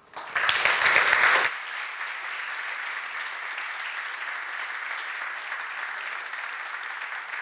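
Audience applauding. It is loudest in the first second and a half, then drops to steady, softer clapping.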